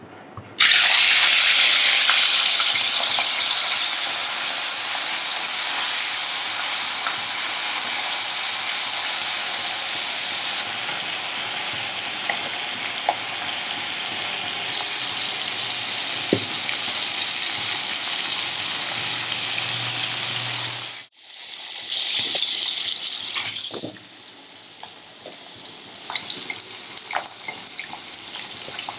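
Prawns coated in salt and turmeric sizzling in smoking-hot oil in a wok. The hiss starts suddenly and loudly about half a second in as they hit the oil, and settles into a steady frying sizzle. Near the end the sizzle is quieter, with a spatula scraping and clicking against the pan.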